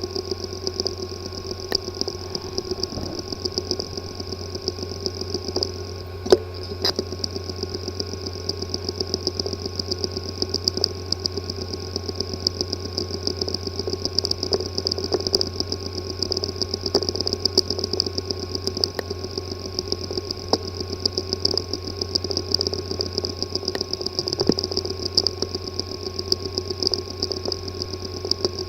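Hard drive with a physically damaged disk assembly running and making its fault noise: a steady low hum with a fast, even ticking buzz and an occasional louder click. This is the clicking, buzzing kind of sound that points to internal mechanical damage needing cleanroom repair.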